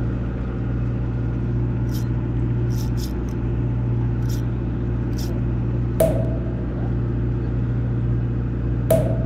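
Fishing boat's engine running steadily with a low hum. A few faint ticks, then two sharp knocks with a brief ring, about six and nine seconds in.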